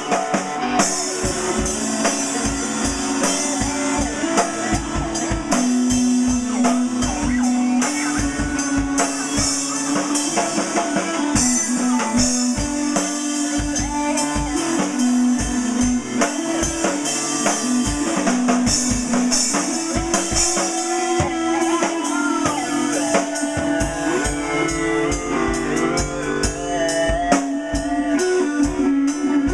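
Rock music played on drum kit, bass and guitar, with steady drum hits over a sustained bass line.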